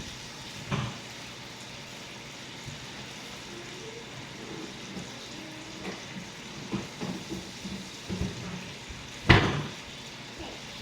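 Scattered knocks and clatter of plastic food containers being handled, with one loud knock about nine seconds in.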